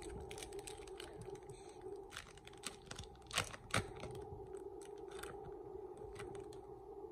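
Crinkling and tearing of a hockey card pack's foil wrapper as it is opened by hand, a run of small crackles with a louder crackling tear about three and a half seconds in. A steady low hum lies underneath.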